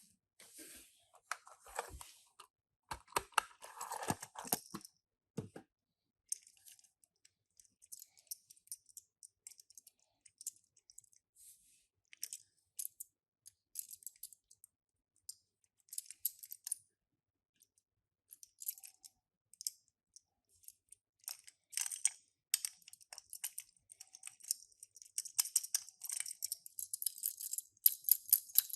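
Packaging of a miniature toy car being handled and opened: crinkling plastic or paper with scattered small clicks, coming in short spells and growing busier near the end.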